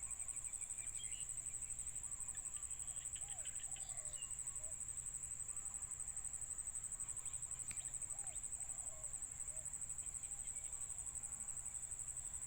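Faint, short bird calls come and go over a steady high-pitched whine and a low hum. The calls cluster in the first few seconds and again about eight to nine seconds in.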